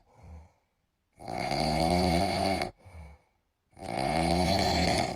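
Snoring: two long, pitched snores about a second and a half each, with a short soft puff before each one and silence in between.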